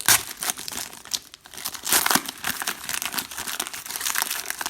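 Foil wrapper of a trading-card pack crinkling as it is handled and torn open, in irregular flurries with louder crackles near the start and about two seconds in.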